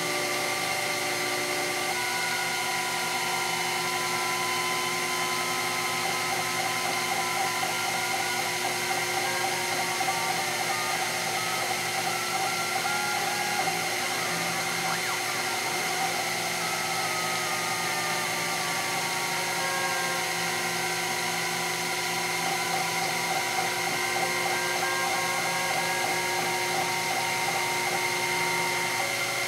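Sherline CNC mill cutting a 1-inch Delrin bar in simultaneous fourth-axis machining: a steady spindle-motor whine with the stepper motors whining in several tones that slowly rise and fall in pitch as the rotary axis and slides move together.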